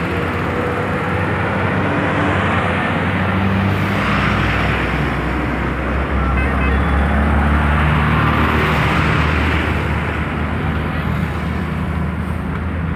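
Highway traffic noise: vehicles passing with a low engine rumble that grows heavier about four seconds in, swelling and fading a few times.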